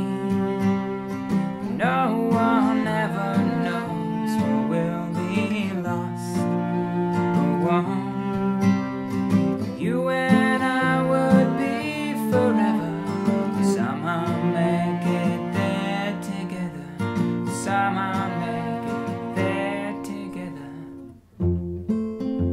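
Acoustic guitar and cello playing an instrumental passage of an indie pop song. Near the end the music cuts out for a moment, then comes back in with strummed guitar.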